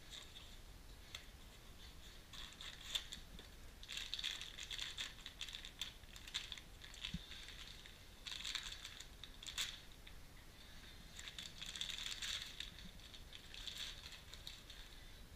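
Plastic bags and small cardboard parts boxes rustling and crinkling as parts are unwrapped by hand, in several spells of a second or two each, with a few small clicks and taps between them.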